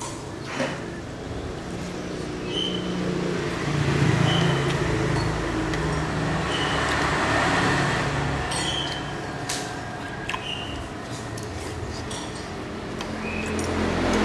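Road traffic passing, with engine noise swelling about four seconds in and again near the end, and a few clinks of a metal spoon and fork against a ceramic soup bowl.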